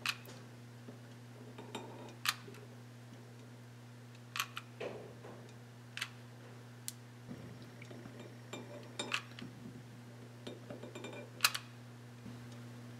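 Scattered sharp clicks and light clinks of a mini hot glue gun and an upturned glass bowl being handled on a stainless steel counter as hot glue is laid down the bowl's side, over a steady low hum.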